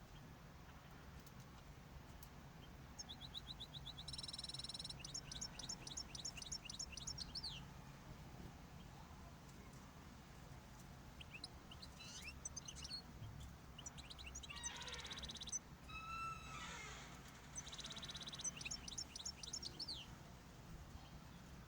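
Small cage finches singing and calling in several short bouts: buzzy, nasal notes followed by quick runs of high chirps, over a faint low hum.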